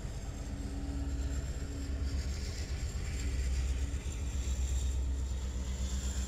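Steady low vehicle rumble, deep and even throughout, with a faint hum in the first couple of seconds.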